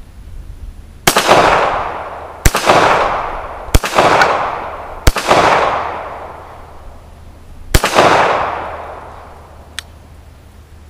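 Five shots from a Stallard Arms JS9 9mm pistol: four about a second and a quarter apart, then a fifth after a pause of about two and a half seconds. Each report echoes and fades over about a second.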